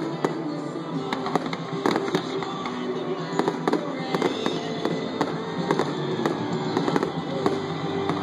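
Aerial fireworks bursting in quick succession, a dense run of bangs and crackles, several a second. Music plays along underneath.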